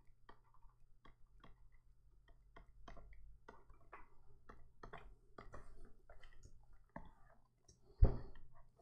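Faint, quick, irregular clicks, several a second, from clicking the input device to dab spot-healing brush strokes. One much louder low thump comes about eight seconds in.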